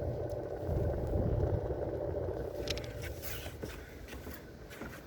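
Clothes dryer running: a steady low rumble that eases off a little after about three seconds.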